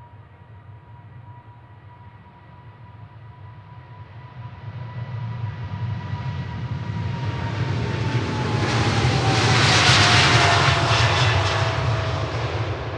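Boeing 777-200ER's GE90 jet engines at takeoff power as the airliner climbs out past. The engine noise builds to a peak about ten seconds in, then eases off, and a steady fan whine drops in pitch as it goes by.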